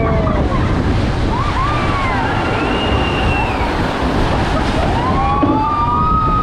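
A Zierer jet-ski water ride boat churning through its pool, with a loud, steady rush of water and wind. Several high squeals rise and fall over it, most in the first half and again near the end.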